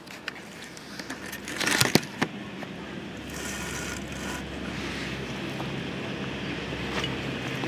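A few sharp crackles and a short scrape close to the microphone about two seconds in, then a steady low mechanical hum, like a vehicle engine running nearby, that continues.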